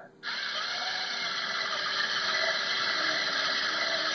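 Lego NXT robot's motors running as it drives, a steady whirring noise that starts abruptly a moment in and holds without a break.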